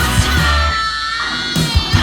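Rock music with electric guitar, bass and drums played back through a Telefunken TLX-series hi-fi loudspeaker. The bass and drums drop out briefly about a second in, leaving a held, bending guitar note, then the beat comes back.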